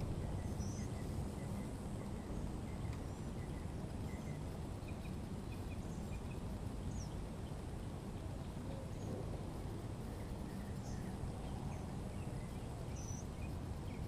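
Outdoor ambience: steady low background noise with scattered faint bird chirps and a thin, steady high whine.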